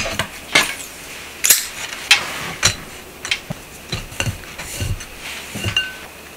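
Irregular light knocks and clinks of fresh-cut noodles being handled into a glass mixing bowl, hands and noodle bundles bumping the glass, about one or two a second.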